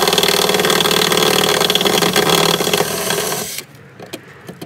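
Cordless drill running steadily under load as it drills out a pop rivet holding a car door's window regulator. It stops abruptly about three and a half seconds in, followed by a few light clicks.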